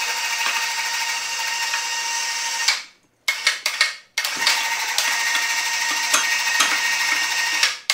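Electric overhead hoist motor running with a steady whine as it lifts a heavy wheel hub of about 372 pounds. It stops a little under three seconds in, gives a few short jogs, then runs again and stops just before the end.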